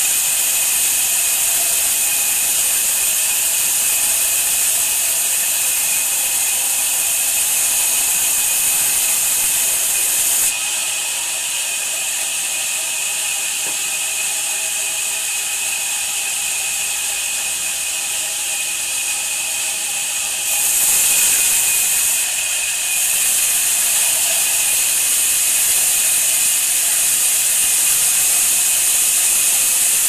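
Large band sawmill running, its blade sawing lengthwise through a hardwood slab as it is pushed through by hand: a steady, loud, high hiss over the machine's hum. The hiss eases about ten seconds in and comes back about ten seconds later.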